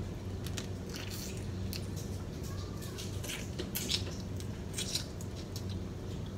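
Close-up mouth sounds of someone eating snow crab leg meat: chewing, with short wet smacks and clicks scattered through, over a steady low hum.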